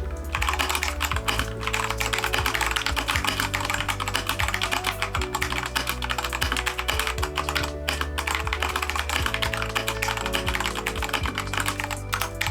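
Fast typing on a Keychron K2 mechanical keyboard fitted with unlubed Gateron switches: a dense run of key clacks, starting just after the start and pausing briefly just before the 8-second mark. Background music plays underneath.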